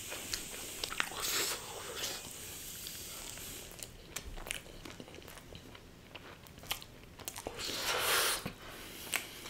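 A person biting and chewing pizza close to the microphone. There are two louder crunchy bites, one about a second in and one near the end, with small clicks of chewing between.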